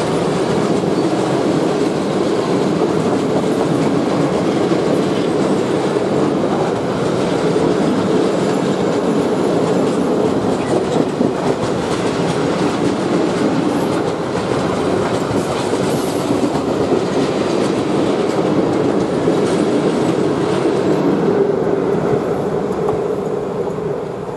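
A freight train of open coal wagons rolling past, a steady loud rumble of steel wheels on the rails. It fades near the end as the last wagon goes by.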